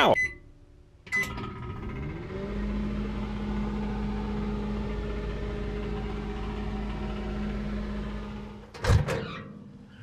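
Microwave oven running: a sharp click about a second in, then its hum rises in pitch for about a second and holds steady under a low rumble, ending with a short sharp clatter near the end.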